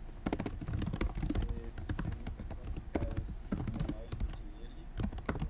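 Typing on a computer keyboard: quick, irregular runs of keystrokes.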